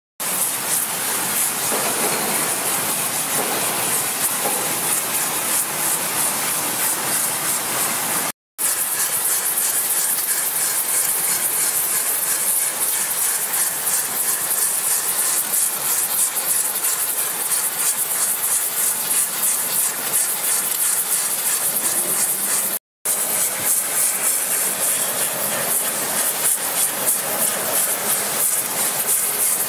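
Oxy-acetylene flame spray-welding torch hissing steadily as it sprays alloy powder onto the flights of an extruder screw. The hiss breaks off briefly twice.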